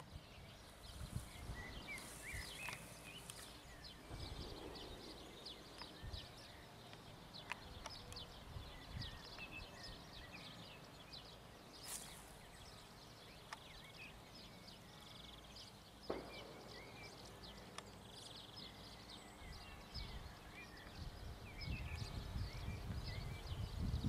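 Outdoor ambience of birds chirping and singing, with a low rumble of wind on the microphone that grows stronger near the end, and a few isolated clicks.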